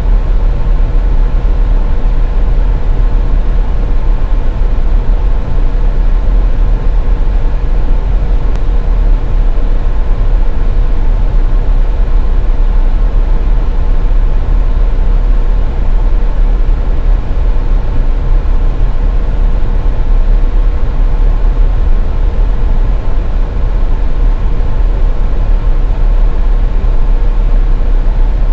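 Steady road noise of a car driving on a highway, heard from inside the cabin: a constant deep tyre and engine rumble with a faint steady hum over it.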